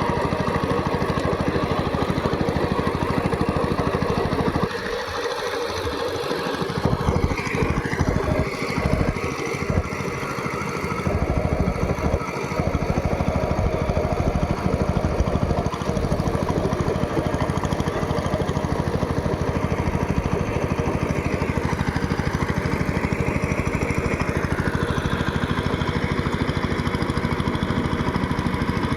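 Power tiller's engine running steadily while ploughing. From about five to twelve seconds in, the sound turns uneven and a little quieter, its deep part dropping out and coming back.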